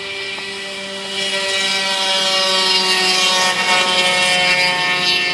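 Small two-stroke moped engine running at a steady speed, growing louder about a second in and holding there.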